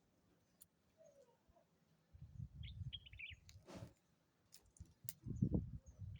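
A bird chirping: a quick run of high chirps about two and a half seconds in. Low rumbling noise comes twice, loudest near the end.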